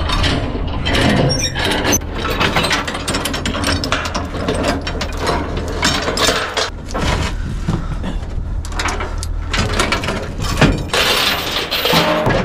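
A compact machine's engine running with a steady low hum under continual irregular metallic clanking and rattling.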